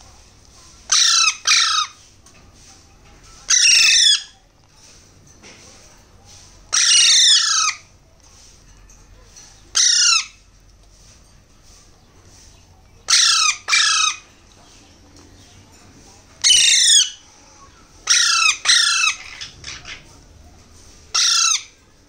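Alexandrine parakeet chicks giving loud begging calls while being hand-fed from a syringe: about eleven short calls with pauses between them, several coming in quick pairs.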